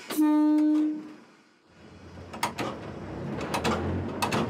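Inside an electric locomotive's cab: a short steady tone lasts about a second. After a brief hush, a low electric hum builds as the locomotive gets moving, with a few sharp clicks.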